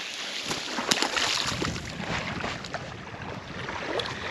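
Shoreline water splashing and lapping, with wind on the microphone and a few scattered sharp clicks.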